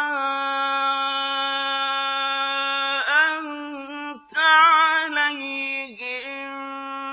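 A man's voice reciting the Quran in the slow, melodic chanted style: one long note held steady for about three seconds, then shorter ornamented phrases that glide and waver in pitch.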